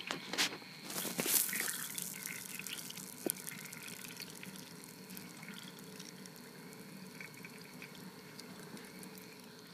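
Water churning in a toy tornado maker's tank as it spins into a vortex. A few sharp splashes or clicks come in the first second and a half, then it settles into a steady, slowly fading swish with a thin high tone running under it.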